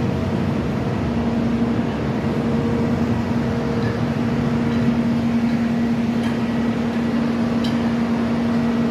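Diesel engine of railroad track-repair machinery running steadily, a constant low drone with a steady hum over it.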